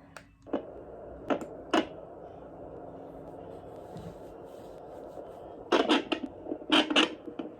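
A handheld fetal Doppler's speaker hissing with steady static. A few sharp knocks come in the first two seconds, and a cluster of louder crackles comes near the end as the gel-coated probe is handled.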